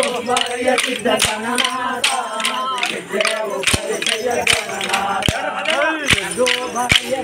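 Dancers' sticks clacking together in a quick, loose rhythm, several strikes a second, over people singing and shouting and crowd chatter.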